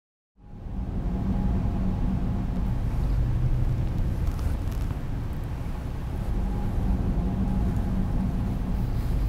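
Steady low outdoor background rumble that fades in about half a second in and holds without change.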